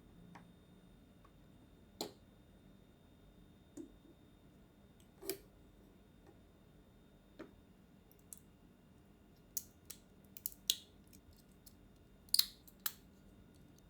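Scattered sharp plastic clicks and snips from a 1/144 plastic model kit being assembled: hobby nippers cutting parts from the runner and parts pressed together. A few isolated clicks, then a quicker cluster in the last few seconds, the loudest near the end.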